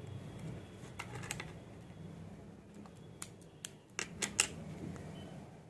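A small paper packet being handled and unfolded by fingers: crisp paper crinkles and clicks in short clusters, about a second in and again from about three to four and a half seconds in, the loudest near the end. A low steady hum runs underneath.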